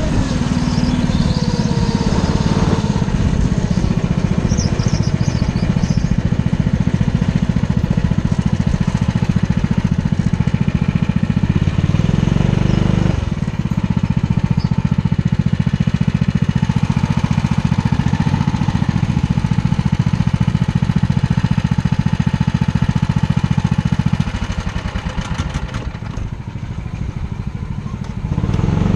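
Rental go-kart's small engine running under the driver's seat as the kart is driven at speed, its note changing briefly about halfway through. About 24 seconds in the engine sound drops to a quieter, uneven running as the kart slows in the pit area.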